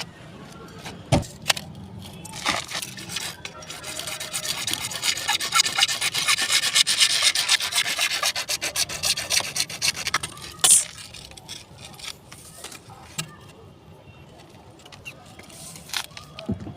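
A hand tool rasping in fast back-and-forth strokes, as in cutting or filing pipe during plumbing work. The strokes build up a few seconds in, run for about six seconds and stop with a sharp knock, and a few scattered knocks and scrapes come before and after.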